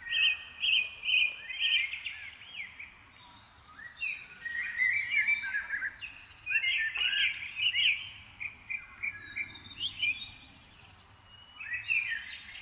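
A dawn chorus of several songbirds chirping, trilling and whistling together, in busy stretches with brief lulls between.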